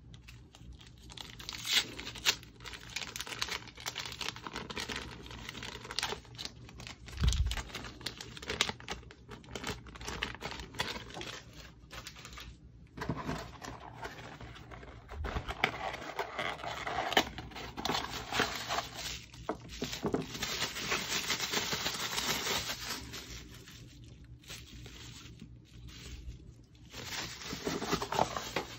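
Hands unpacking packaging: plastic sleeves and bubble wrap crinkling, small cardboard boxes rustling and scraping, with irregular taps and a longer stretch of steady rustling near the middle.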